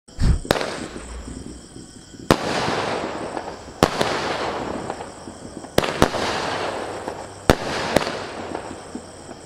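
Aerial fireworks going off: a low thump right at the start, then sharp bangs every second or two, some in quick pairs, each followed by a long crackling hiss as the burst fades.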